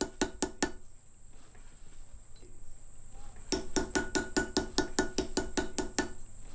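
Rainforest insect sound: a steady high-pitched buzz, with a rapid run of evenly spaced clicking pulses, about five a second. The clicking stops within the first second, pauses, and starts again about halfway through.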